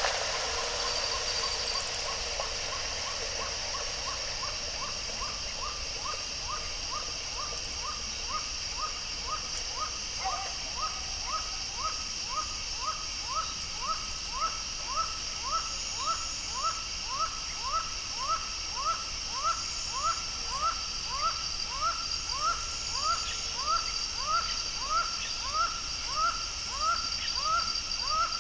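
Laughing falcon (acauã) singing: a long, even series of short rising notes, about three every two seconds. The notes start faint and grow louder.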